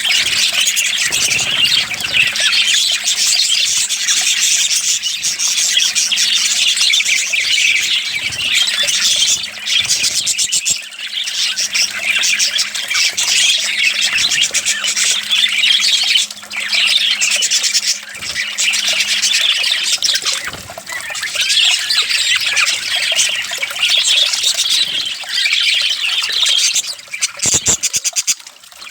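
A flock of small pet parrots chattering and squawking without pause, a dense high-pitched twittering with a few brief lulls. Under it runs a faint steady low hum that stops about two-thirds of the way through.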